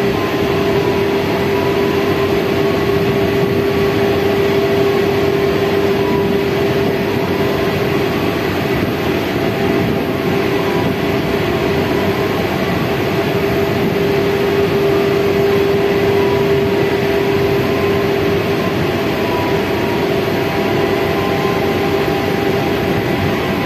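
Heavy machinery running steadily: a loud, even drone with a constant hum that never lets up.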